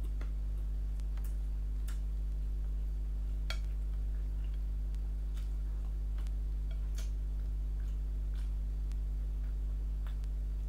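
Steady low electrical hum under faint, sharp mouth clicks and smacks from chewing a mouthful of rice eaten by hand, coming unevenly every second or two.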